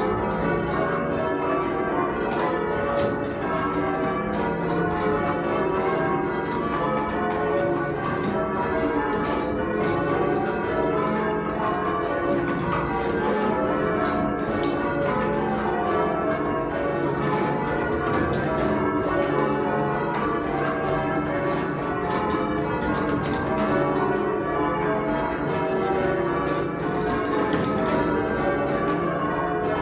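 Change ringing on a heavy ring of eight church bells in C# with a 25 cwt tenor: the bells strike one after another in a steady, unbroken rhythm, each one's ring overlapping the next.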